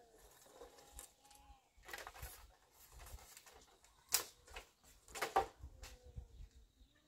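A few sharp knocks and taps, the loudest about four seconds in and another about a second later, with faint short calls in the background near the start.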